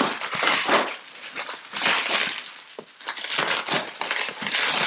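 Bubble wrap crinkling and rustling as it is pulled and handled off a wrapped chair backrest, in three bouts, the last one the longest.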